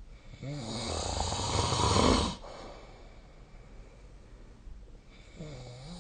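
A person snoring. One long snore builds in loudness for about two seconds and cuts off sharply, and a second snore begins near the end.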